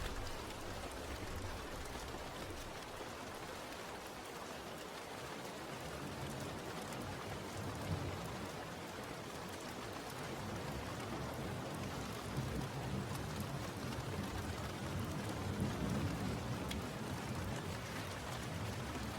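Steady rain falling as a constant hiss, with low thunder rumbles swelling about midway and again in the latter part.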